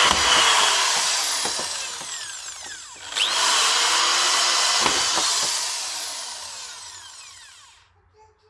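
Power drill boring holes: it runs at full speed, is released and winds down, then is triggered again about three seconds in and winds down to a stop near the end. The drill is making mounting holes in a car door for a speaker.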